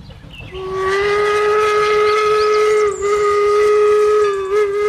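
Steam locomotive whistle blowing one long steady blast, starting about half a second in, with a brief break about three seconds in.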